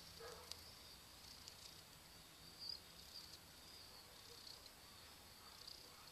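Near silence: room tone with a faint, steady high-pitched whine and a few soft clicks.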